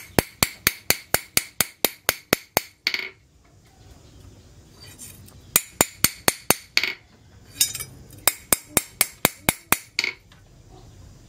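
Small hammer tapping a forged steel knife held against a steel post anvil: quick light strikes, about four or five a second, in three runs with short pauses between them, each strike with a bright metallic ring.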